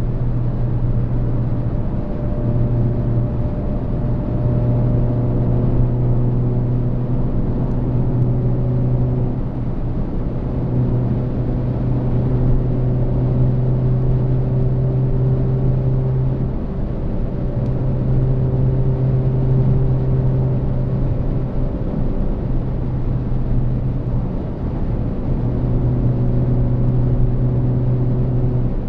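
Interior of a Volkswagen Golf Mk8 1.4 TSI cruising at high motorway speed, around 180 km/h: a steady low engine drone over road and wind noise, easing briefly a few times.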